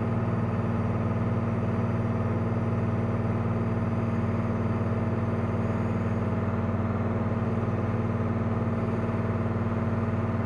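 Cozy MKIV canard plane's rear-mounted pusher engine and propeller at takeoff power, a steady drone heard inside the cockpit through the takeoff roll and lift-off.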